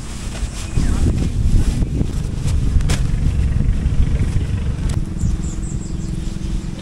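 Engine running with a low, steady rumble and wind buffeting the microphone; a steady hum joins in near the end.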